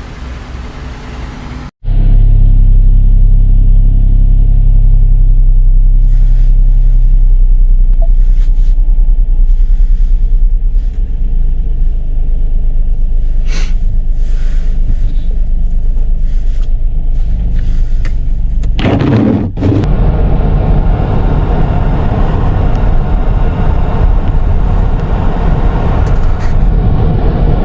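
Road and engine rumble heard while riding in a moving car: a loud, steady low rumble. It cuts off abruptly about two seconds in and again about two-thirds of the way through, then carries on.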